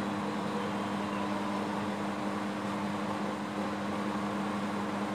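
Steady mechanical hum of running machinery: two low steady tones over an even hiss, with no knocks or tool clicks.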